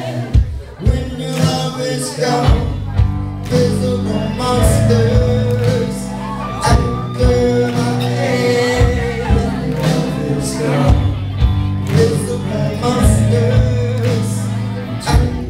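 Live rock band playing, with a man singing over drums, electric guitars and keyboard, heard from the audience.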